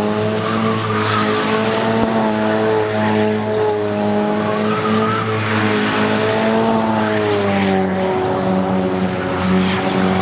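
Car engine held at high, fairly steady revs while its rear tires spin and squeal in a burnout or donuts. The engine dips slightly about three-quarters of the way through. The tires are being worn down to nothing.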